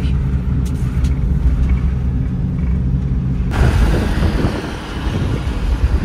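Steady low rumble of a moving vehicle's engine and road noise. About halfway through it turns rougher and noisier.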